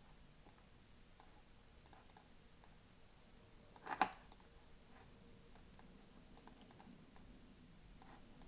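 Faint, scattered clicks of a computer mouse and keyboard, with one louder knock about four seconds in.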